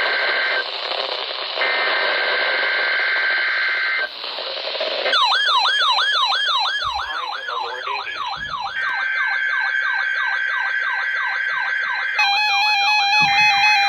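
Weather radio test alert tones. It opens with the buzzy two-pitch digital header bursts that trigger alert receivers. From about five seconds in, a siren-like alarm warbles rapidly up and down, overlapped by another header burst. Near the end the steady weather radio warning alarm tone begins.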